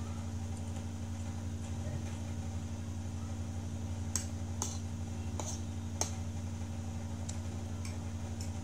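A steady low hum, with about four sharp clinks of a metal fork against a ceramic plate a little past the middle.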